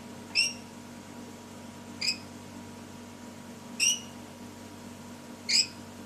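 Rainbow lorikeet giving four short, high-pitched calls, one every second and a half or so. The owner takes the calling for the lory looking for its partner.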